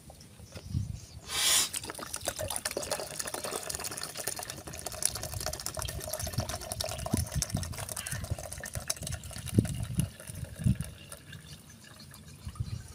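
Coconut water pouring from an upended, freshly chopped green coconut and splashing into a plastic tub, thinning to a quieter trickle after about ten seconds. A brief loud noise about a second and a half in.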